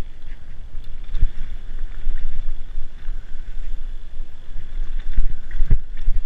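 A mountain bike descending a dirt forest trail at speed, heard as a steady low wind rumble on the microphone with knocks and rattles from the bike over bumps. The loudest thumps come about a second in and twice near the end.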